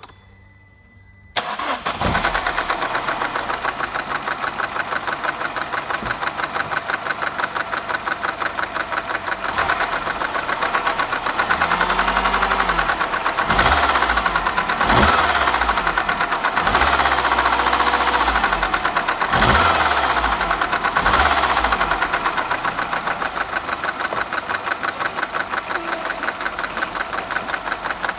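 Peugeot VTi petrol engine starting about a second in, then running with a fast, even rattle and being revved up and back down several times in the middle. The rattle is a noisy timing chain.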